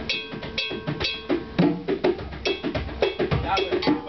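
Hand drums played in a quick, steady rhythm under a struck metal bell whose sharp, ringing strikes cut through the drum strokes.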